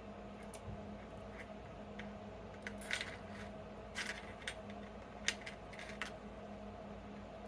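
Small metal tools and lock parts being handled, giving a scatter of light clicks and taps, about eight of them, loudest around three, four and five seconds in, over a faint steady hum.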